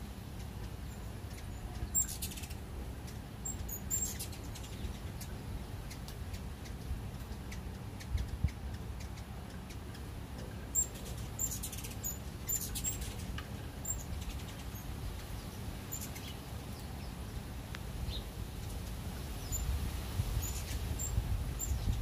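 Hummingbirds giving short, very high-pitched chirps in scattered clusters every few seconds, over a steady low rumble of wind on the microphone.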